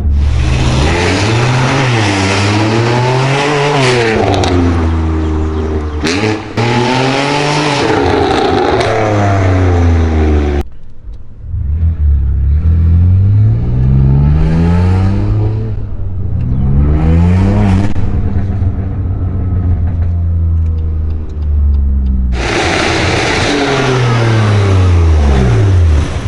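BMW M2 Competition's S55 straight-six running through a Tubistyle full exhaust with the particulate filter deleted. It revs hard with repeated rises and falls in pitch, then accelerates up through the gears in a series of climbing sweeps, and drops in pitch as it slows near the end.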